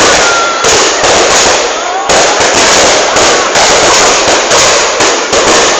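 Fireworks display going off close by, a dense, continuous crackle of bursts and bangs with fresh loud volleys about half a second and two seconds in.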